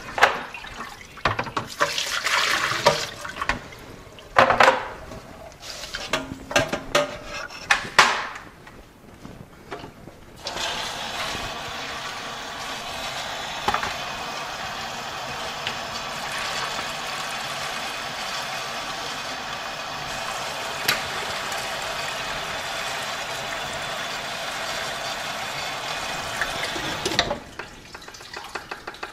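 Water from a garden hose pouring steadily into a plastic bucket of pea seeds in a mesh bag, rinsing the bleach sanitizer off them. It starts about ten seconds in and cuts off suddenly near the end. Before it there are scattered knocks and short splashes.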